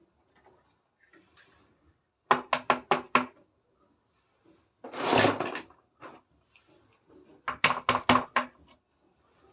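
Pieces of a plastic toy kitchen set knocking together: two quick runs of about six sharp taps, each lasting about a second, with a short rattling rustle between them.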